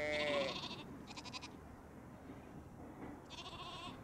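Lambs bleating: one loud high bleat at the start, then two shorter quavering bleats, one about a second in and one near the end.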